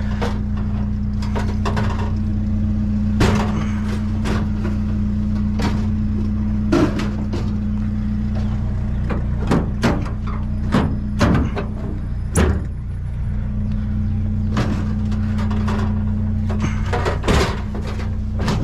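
Pickup truck engine idling steadily, with scattered knocks and clanks as a heavy metal filing cabinet is shifted and lifted into the truck bed.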